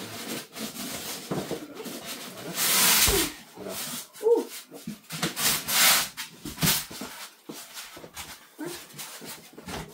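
Polystyrene foam packing blocks being pulled out of a cardboard box, rubbing and squeaking against the cardboard in a few loud scraping pulls, the longest about three seconds in.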